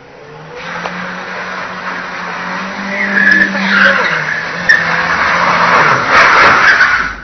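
Small hatchback's engine revving hard while its tyres squeal and skid as the car is thrown sideways into a drift. The sound grows steadily louder, the tyre squeal loudest about six to seven seconds in, then cuts off suddenly.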